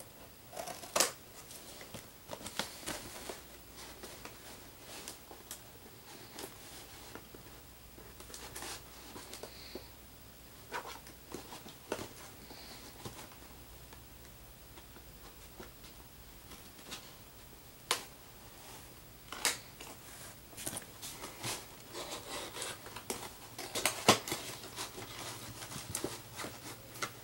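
Tape being picked at and peeled off a packaging box: scattered clicks, scratches and short tearing sounds with quieter stretches in between, busier near the end. The tape is stuck fast and hard to get off.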